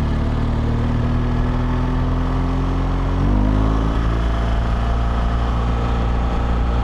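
BMW GS Adventure boxer-twin engine pulling under acceleration, its note rising slowly; about three seconds in the pitch drops at once as it shifts up a gear, then runs steady, over wind rush.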